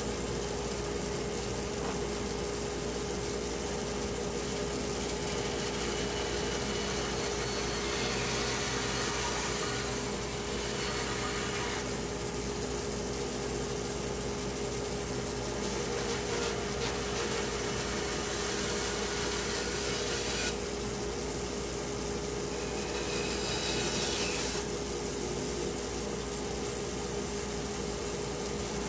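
A power saw running steadily while cutting cherry wood, with a rasping hiss that grows stronger twice for a few seconds each, about eight and twenty seconds in.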